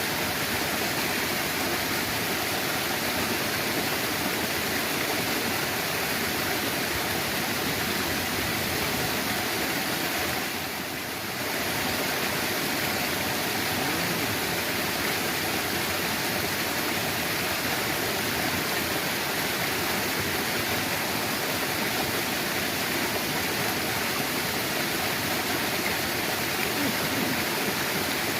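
Steady rush of flowing water, like a stream or a channel's outflow, dipping briefly about eleven seconds in.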